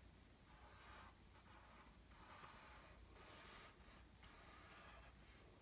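Faint scratching of an HB #2 graphite pencil on paper, in several short separate strokes.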